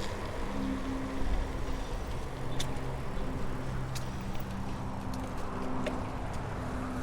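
Steady outdoor riding noise of a bicycle on a lakefront trail, with wind and tyre hiss and a low motor hum in the background. A few short sharp clicks stand out, scattered through the middle and later part.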